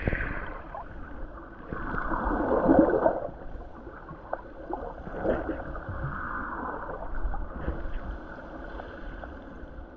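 Muffled sloshing and gurgling of water heard with the microphone under the surface, rising in swells about two, five and seven seconds in, with a few faint clicks.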